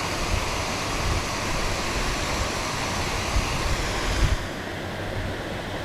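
Steady rushing hiss with irregular low rumbling buffets: wind blowing across the action-camera microphone. The high part of the hiss drops away about four seconds in.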